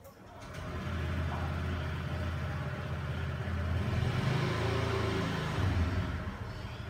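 A low engine rumble that swells up about half a second in, grows loudest around four to six seconds, then eases off near the end.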